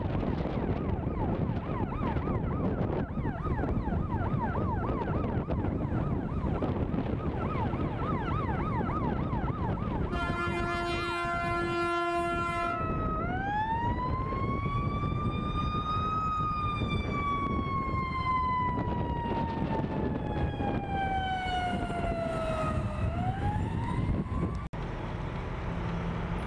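Ambulance's electronic siren. It starts on a fast yelp, then gives a steady horn blast of about two and a half seconds with a short break, then changes to a slow wail that rises, falls over several seconds and starts to rise again near the end. Steady traffic and wind noise run underneath.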